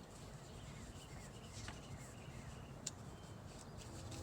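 Quiet room tone with a faint steady hiss and a few soft clicks, the clearest about three seconds in.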